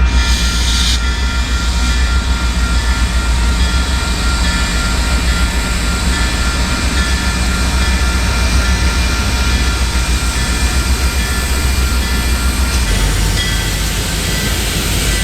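A train passing close by: a steady, loud low rumble of locomotive and rolling cars, with several thin steady high tones over it.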